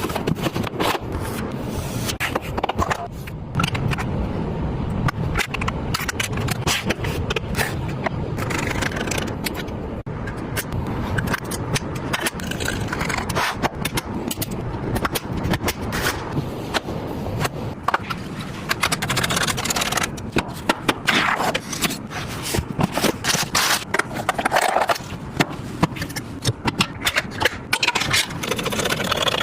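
Hard parts being handled during a PC build: many irregular clicks, knocks and scrapes over a steady low hum.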